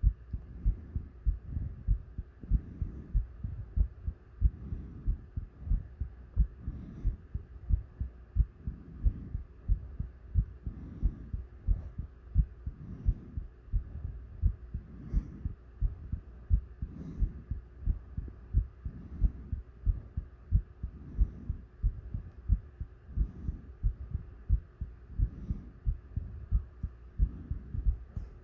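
A human heartbeat thumping steadily, with heavy breathing swelling and fading about every two seconds.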